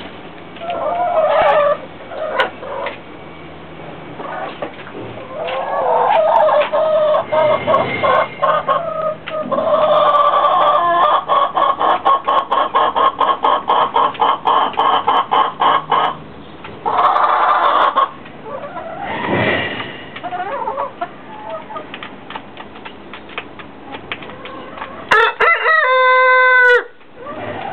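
Rooster clucking and calling on and off, with a long run of rapid, evenly spaced clucks in the middle. Near the end comes one short crow that stops abruptly.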